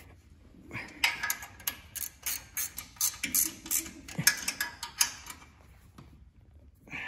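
Hand ratcheting wrench clicking in quick runs while bolts on a small engine are tightened; the clicks come thick from about a second in and thin out near the end.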